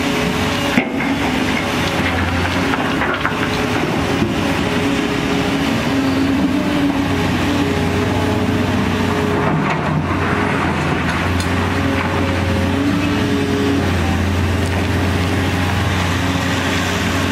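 Volvo crawler excavator's diesel engine and hydraulics running steadily as it dumps, swings and digs. A few short knocks stand over the drone, the sharpest about a second in.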